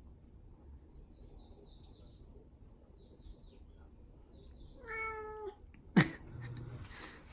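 Munchkin cat giving one short meow about five seconds in, slightly falling in pitch, a demand to be played with. About a second later a single sharp knock is the loudest sound.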